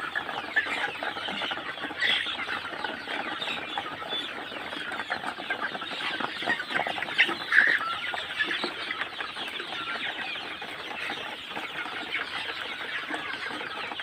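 A large flock of young Sonali chickens clucking and chattering steadily, with many small clicks and taps mixed through it.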